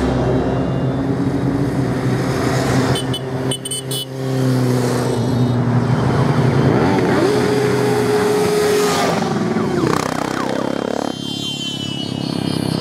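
A procession of motorcycles riding past one after another, engines running steadily, with notes that rise and fall as the bikes go by.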